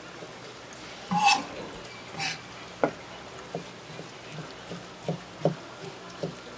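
Kitchen knife slicing raw sea cucumber on a cutting board, each cut ending in a light tap of the blade on the board, two to three a second in the second half. Two short, louder scraping sounds come a second or two in.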